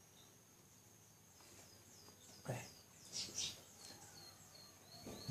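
A small bird chirping, a run of short falling notes repeated several times a second from about a second and a half in. A few soft short noises come in between.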